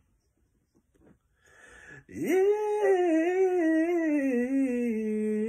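A man singing a gospel song a cappella: after a second and a half of near silence and a short breath, one long wordless note that sweeps up, wavers as it is held, and slowly falls, ending in a quick quavering run.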